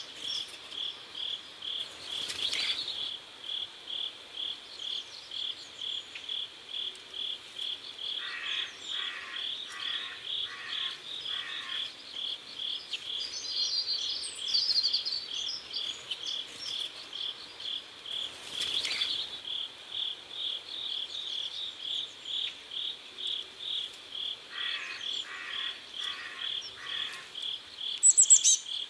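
Crickets chirping in a steady pulsed rhythm, about two to three chirps a second. Twice, a lower rasping call repeats four or five times about a second apart, and a few brief high chirps come in now and then.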